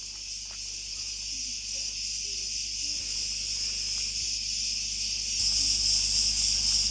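Steady high chorus of insects, a dense hissing buzz that gets louder about five seconds in.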